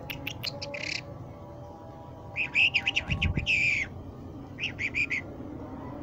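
Caged Irani jal songbird singing in short phrases: a few quick sharp chirps at the start, a loud run of rapid notes in the middle, and a shorter burst of notes near the end.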